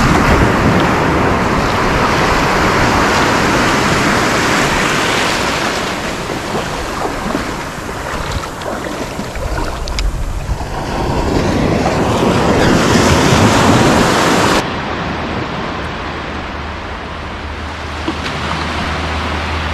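Small surf breaking and washing up over shallow sand, with wind on the microphone. A little after two-thirds of the way in, the sound drops quieter and duller, and a steady low wind rumble sits under the wash.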